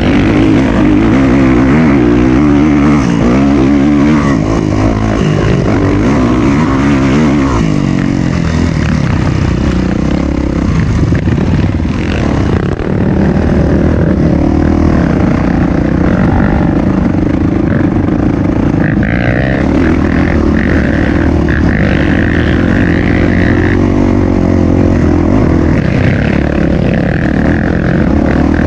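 Dirt bike engine running under load on a trail ride, its revs rising and falling as the rider works the throttle.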